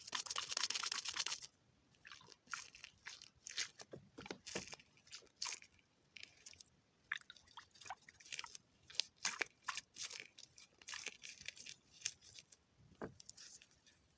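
Close, crisp crunching and crackling: a dense burst in the first second and a half, then short irregular crunches scattered through the rest.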